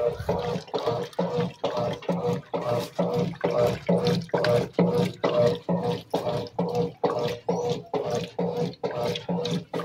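Brastemp Mondial washing machine agitating in its soak stage: the agitator swishes the wash water back and forth in a steady rhythm of about two to three strokes a second, over a steady motor hum.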